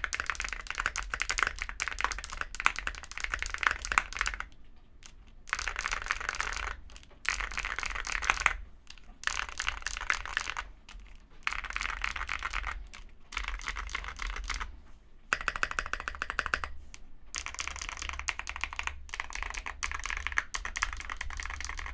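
Typing on a Mr. Suit tenkeyless mechanical keyboard with tactile KNC Black Jacket switches, FR4 plate, foam-filled case and SA profile ABS keycaps: fast runs of keystrokes broken by short pauses.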